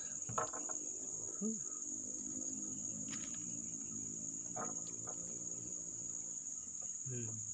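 Forest insects buzzing in a steady, unbroken high-pitched drone.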